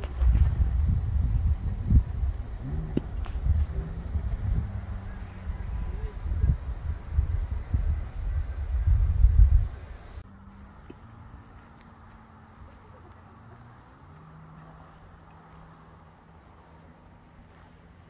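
Wind buffeting the microphone in gusts over a steady high chirring of insects. About ten seconds in the wind rumble cuts off abruptly, leaving the insects quieter.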